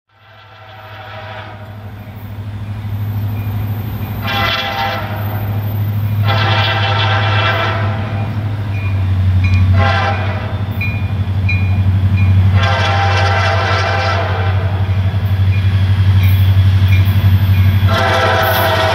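Air horn of an approaching EMD SD40-2 diesel locomotive sounding six blasts, long and short mixed, the first faint and the last still going at the end. Under the horn is a steady low engine hum that grows louder as the locomotive nears.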